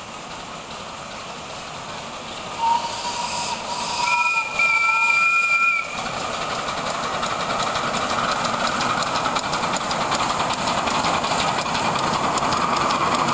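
Two miniature live-steam locomotives, the 4-4-0 and the 4-6-4, working a double-headed train: a single-note steam whistle sounds, then a second, two-note whistle joins it and both stop together. Then comes fast, even chuffing of the exhaust beats with loud hissing steam, growing louder as the train draws near.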